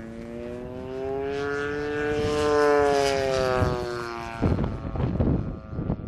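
Single-cylinder two-stroke DLE 30cc petrol engine of a radio-controlled Focke-Wulf Fw 190A model aircraft in flight, its propeller note rising in pitch and growing louder to a peak about two and a half seconds in, then easing down. About four and a half seconds in, gusts of wind buffeting the microphone rise up and drown out the engine.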